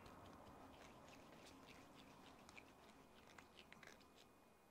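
Faint small clicks and scrapes of a small screwdriver turning a screw into the cush drive's spur gear assembly of a Traxxas X-Maxx RC truck, against near silence.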